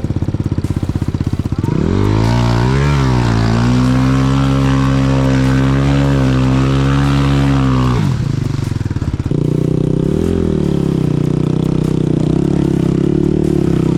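Single-cylinder enduro motorcycle engine revved hard and held at high revs for about six seconds, with a brief dip near the start, then dropping back and revved again more moderately, the bike stuck and being powered out.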